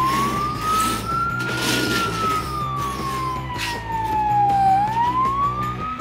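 A siren wailing: one tone that rises, falls slowly over about three seconds, then rises again near the end. It plays over background music, with two short whooshes, one about two seconds in and one near the middle.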